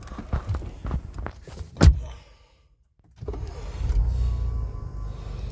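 Clicks and knocks of someone climbing into a Ford F-150 pickup's cab, with one loud thump about two seconds in. After a brief gap a steady low rumble sets in.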